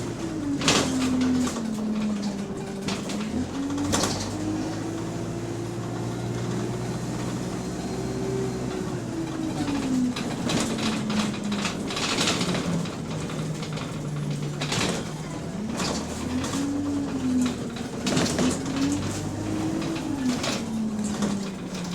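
Bus drivetrain heard from inside the cabin: a droning tone that rises and falls several times as the bus speeds up and slows down, over a low hum, with scattered knocks and rattles.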